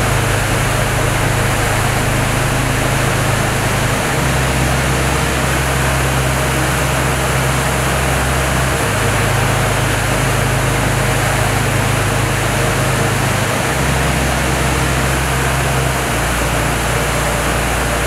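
Steady, loud rushing of Murchison Falls, where the Victoria Nile plunges through a narrow rock gap. Under it run low, held bass notes of background music that shift pitch every few seconds.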